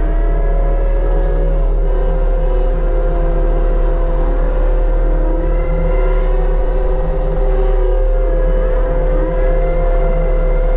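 Mini excavator running a RUT hydraulic brush cutter head: a loud, steady whine from the spinning cutter over the engine's low hum. The pitch sags and recovers a couple of times as the head takes load.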